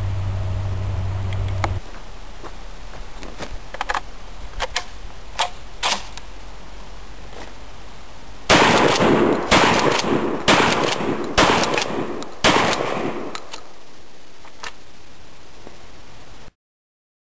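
Dominion Arms Grizzly MAG 12-gauge pump-action shotgun fired five times, about a second apart, emptying its five-shot box magazine, with the pump worked between shots. Several sharp clicks come before the firing.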